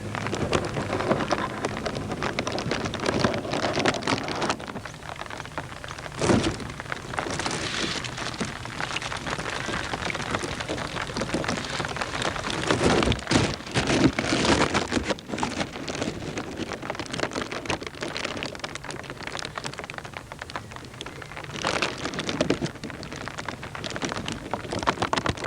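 Rain falling: a steady crackling patter, with louder surges about six seconds in, around thirteen to fourteen seconds, and again near twenty-two seconds.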